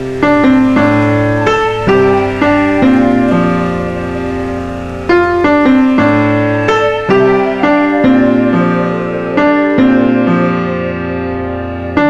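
Background piano music: a slow run of struck notes over sustained chords, each note starting sharply and fading away.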